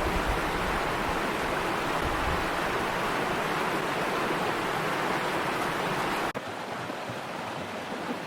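Steady rushing water, which about six seconds in drops abruptly to a quieter, thinner rush.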